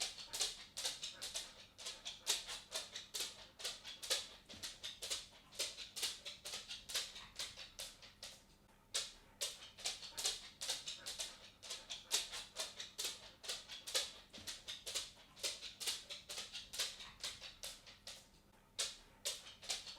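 A dog walking on a wooden floor, its claws and paws clicking and tapping on the boards several times a second in an uneven patter. The steps stop briefly twice, once about halfway through and once near the end.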